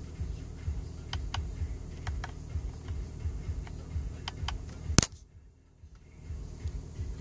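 Audi 3.0 TDI V6 diesel idling in park, heard from inside the cabin as a steady low rumble, with a scattering of light clicks from the steering-wheel menu controls. About five seconds in there is one sharp knock, after which the sound drops out for about a second before the idle comes back.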